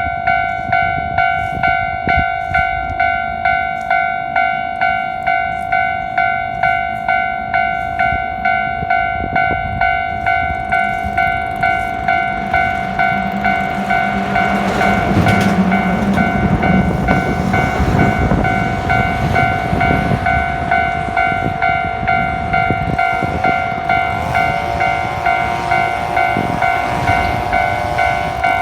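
Level-crossing warning bell ringing with a steady, even beat. A heavy double-trailer truck rumbles through the crossing in the middle, its noise swelling and then fading. A rising whine comes in near the end.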